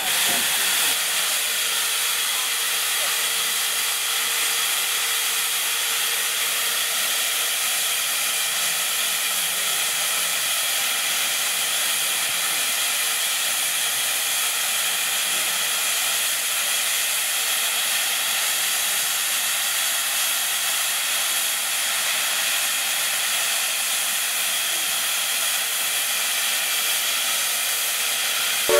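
East Broad Top No. 15, a 2-8-2 Mikado steam locomotive, blowing off steam through its safety valve on top of the boiler: a steady hiss that does not change, the sign that the boiler is at full pressure.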